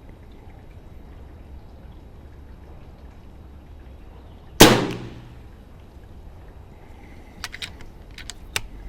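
A single shot from an FX DRS Pro PCP air rifle firing a 33.7-grain boat-tail slug about halfway through, loud and sharp with a short decay. Near the end come a few quick mechanical clicks, over a steady low wind rumble on the microphone.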